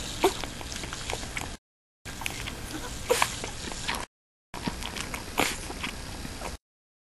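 Newborn Great Pyrenees puppy suckling on a baby bottle's nipple: small wet sucking clicks with a few brief squeaks. The sound cuts out completely for about half a second three times.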